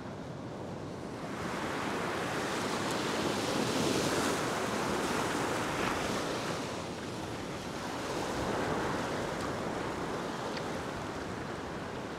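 Ocean swell breaking and washing across a flat rock shelf. The surf swells louder twice, first from about a second and a half in and again past the middle.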